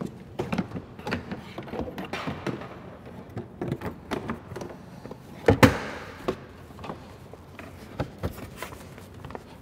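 Plastic tank cover of a Honda ATV being fitted back in place: scattered knocks and clicks of plastic panels being handled and pressed home, with one louder thunk a little past halfway.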